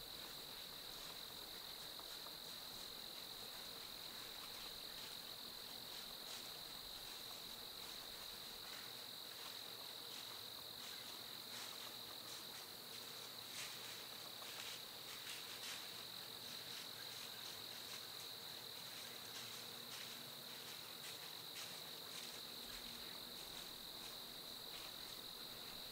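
Steady, faint chorus of crickets trilling in autumn woods, one high even note, with a few faint rustles through dry leaves near the middle.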